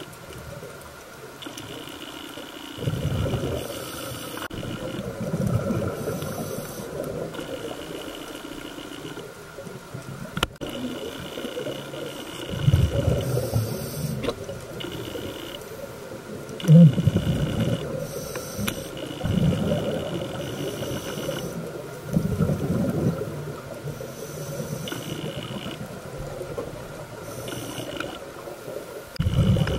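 Scuba diver's regulator breathing heard underwater: a burst of bubbling exhaust rumble every few seconds, with a thin high whine coming and going between the breaths.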